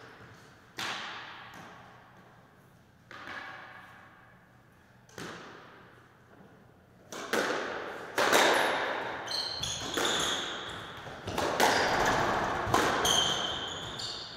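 Squash rally: sharp cracks of the ball off rackets and walls, each ringing out in the court, with shoes squeaking on the wooden floor. A few single knocks a couple of seconds apart come first, then quicker, louder strikes from about seven seconds in.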